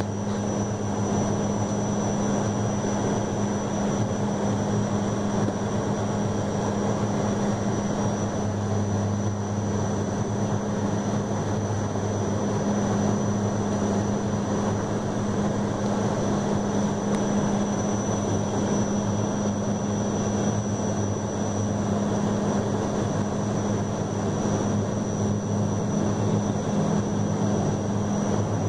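Airliner engine noise heard inside the cabin on the approach to landing: a steady drone with a low hum and a thin high whine, the lowest hum growing stronger about nine seconds in.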